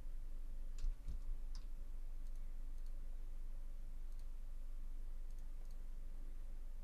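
A few faint clicks, with a light thump about a second in, over a steady low hum.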